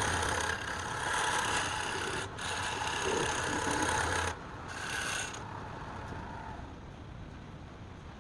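A woodworking machine running while a tool works wood, a loud steady noise over a motor hum. It cuts off about four seconds in, comes back briefly, and then only a fainter steady noise remains.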